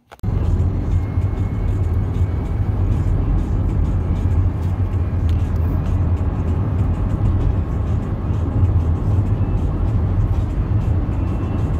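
Steady low rumble of a van driving, engine and road noise heard from inside the cabin, starting suddenly.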